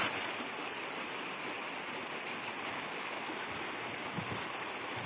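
Shallow river running over rocks: a steady rush of water through the riffles.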